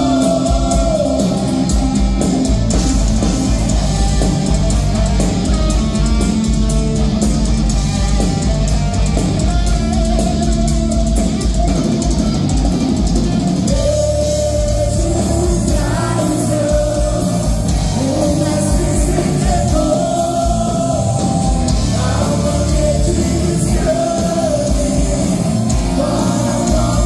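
Live rock band playing loud and steady: drum kit, electric guitars and keyboard, with a man singing into a handheld microphone.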